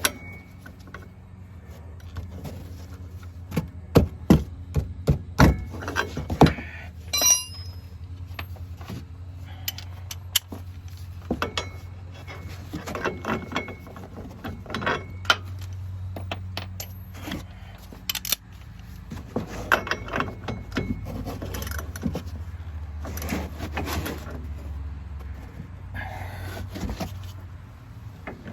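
Hand wrench and socket clinking, knocking and scraping on the front shock absorber's mounting bolt as it is worked loose, in irregular metallic clicks, loudest about four to six seconds in. A steady low hum runs underneath.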